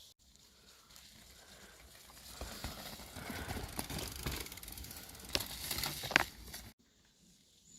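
Bicycle riding over rough ground: tyres crunching and the bike rattling, with many sharp clicks, louder from about two and a half seconds in. The sound cuts off abruptly about a second before the end, leaving a much quieter stretch.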